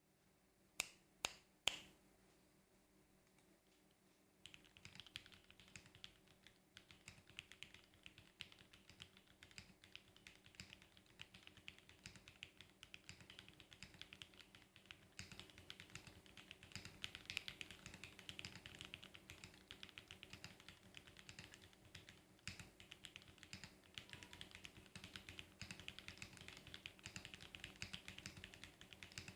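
Typing on a CA60 mechanical keyboard with Gateron Milky Yellow linear switches. It opens with three separate loud clicks in the first two seconds, then turns into continuous fast typing from about four seconds in.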